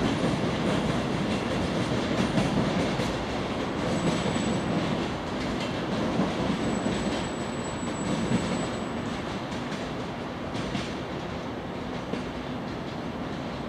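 Container freight wagons rolling away over station trackwork: a steady rumble with wheels clicking over rail joints, slowly fading. A thin, high wheel squeal comes in twice in the middle.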